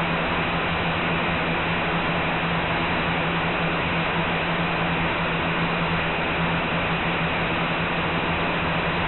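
Blade 180QX micro quadcopter's four small electric motors and propellers running steadily in flight, heard close up from its onboard camera: an even whirring noise with a constant low hum.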